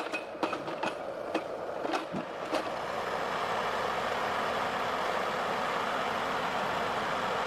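Logset 6F forwarder at work: a string of sharp knocks and clunks in the first few seconds over the machine's running noise, which then goes on as a steady drone.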